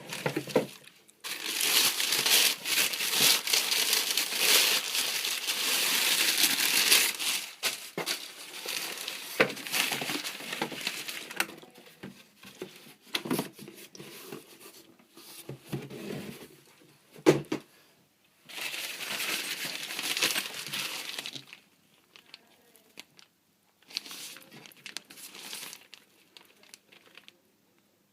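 Paper packaging being crumpled and rustled by hand as a boot box is unpacked. The rustling is long and continuous at first, then comes in shorter bursts with pauses between them.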